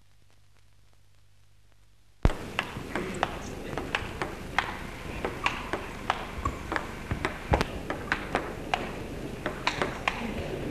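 Near silence for about two seconds, then a table tennis rally: celluloid balls clicking sharply off bats and table in an uneven run of about three hits a second, over a low background murmur.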